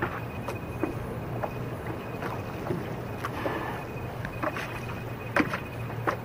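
Water lapping and splashing against the hull of a small paddle craft, with irregular small knocks and drips, the sharpest a little past five seconds in, over a steady low hum.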